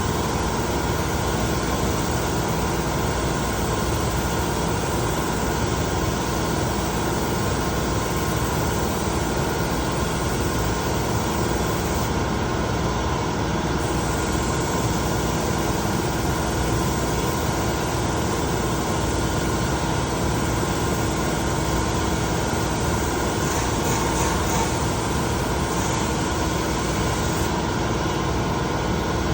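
Steady machine noise, a constant hiss with a low hum, running without change.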